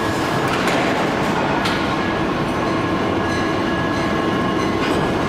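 Steady, loud rumble of heavy forge-shop machinery, with faint steady tones running through it.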